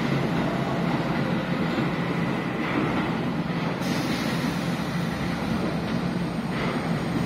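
An R68A subway train pulling out of an underground station: a steady low rumble of its wheels on the rails.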